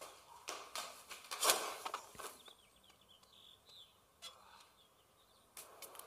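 A few brief rustling swishes in the first two seconds, the loudest about a second and a half in, followed by faint outdoor birdsong chirping. Music begins near the end.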